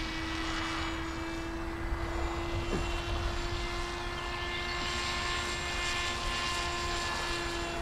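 Radio-controlled model jet formation flying overhead: its motor gives a steady whine with overtones, and a rushing hiss swells from about four seconds in as it passes. Low wind rumble sits underneath.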